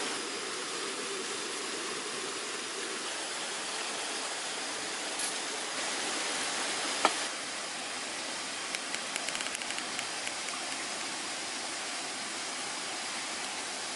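Hot water poured from a stainless steel camp kettle into a carved wooden kuksa cup, over a steady rushing hiss. There is a sharp click about halfway through and a quick run of faint ticks a couple of seconds later.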